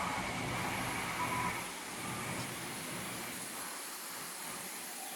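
Steady mechanical hum of a running machine shop: a rotary phase converter, a furnace and a Fadal VMC running its program. A faint higher whine stops about a second and a half in, and the hum carries on a little quieter.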